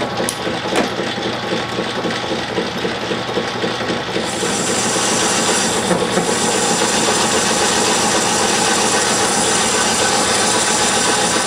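Metal lathe running with a carbide-insert tool taking a 40-thousandths turning cut on a cast iron bar. About four seconds in it gets a little louder and a high hiss joins in, which stays to the end.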